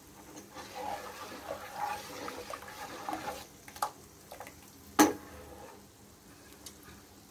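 Metal ladle stirring and lifting thin mung dal payasam in a metal pot, the liquid sloshing, with a sharp clink of the ladle against the pot about five seconds in.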